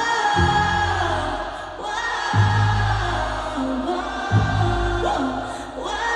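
Live pop concert music: long held sung notes over a band with a bass line, heard from the audience.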